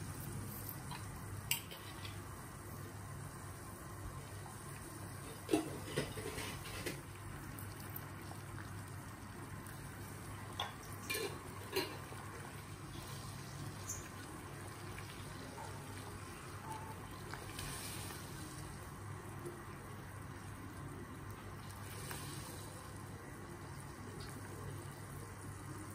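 Ingredients being dropped into a saucepan of water, heard as a few small splashes and clinks in two clusters, about five and eleven seconds in, over a steady low hum and faint hiss.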